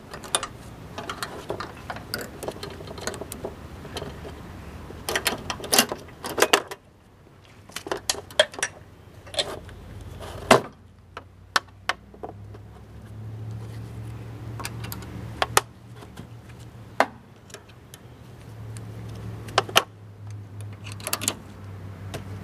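Scattered metal clicks and clinks of a bungee cord's hooks and a chain being handled against a mower deck, with a low steady hum coming in about halfway through.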